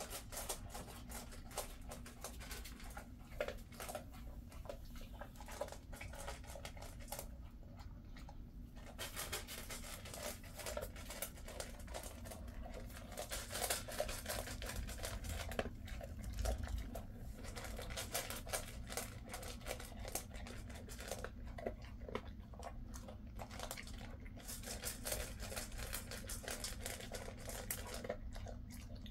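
A Jindo dog eating dry kibble from a stainless steel bowl: steady crunching and chewing, with many small clicks.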